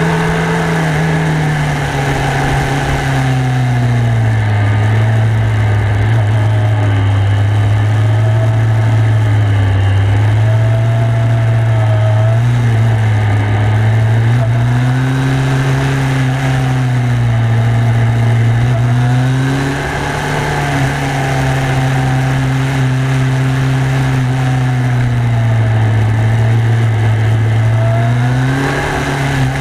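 Kawasaki ZRX1200S inline-four motorcycle engine under way, its revs rising and falling again and again as it pulls out of bends and rolls off into the next, over a steady rush of wind.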